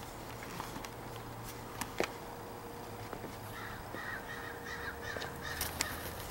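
Faint crow cawing, a few calls in the second half, with a few light clicks.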